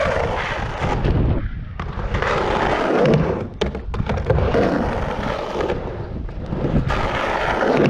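Skateboard wheels rolling back and forth on a 3-foot mini ramp, with a few sharp clacks of the board about three to four seconds in.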